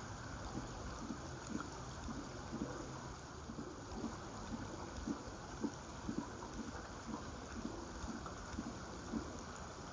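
Small river's water running, a steady rush with irregular low gurgles about once or twice a second.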